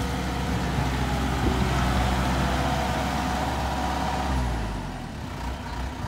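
Kubota DC-105X combine harvester running while harvesting rice: a steady diesel engine drone with the hiss of the working machine. About four and a half seconds in the deep engine sound drops away and the whole sound gets quieter.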